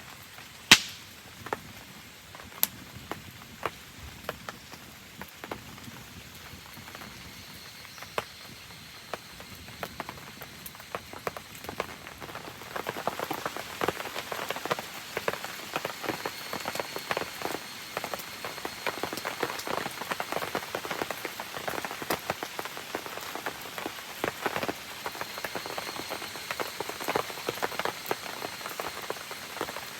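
Rain pattering and dripping on surfaces, growing denser and louder about halfway through. A few sharp pops near the start stand out, one of them loud.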